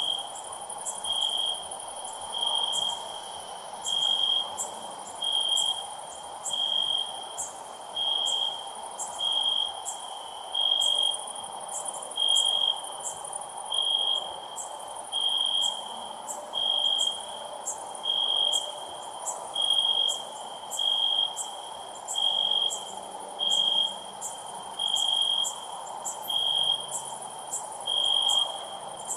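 Cricket chirping loudly in short, high-pitched pulses that repeat evenly, about one every second and a half, with a fainter, higher insect ticking above it.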